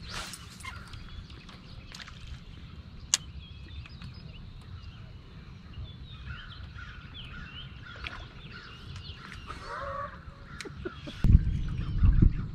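Small birds chirping and calling over open water, many short high chirps over a low steady rumble. A fishing rod's cast swishes right at the start, a single sharp click comes about three seconds in, and a louder low rumble with thumps sets in near the end.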